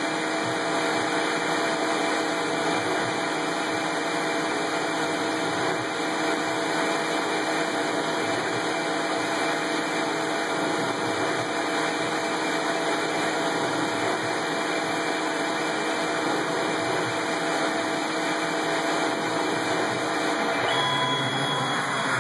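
CNC-converted Grizzly G4002 metal lathe running a threading cycle on a steel shoulder-bolt blank under flood coolant: a steady machine hum with coolant spraying and a few steady tones, which stop near the end.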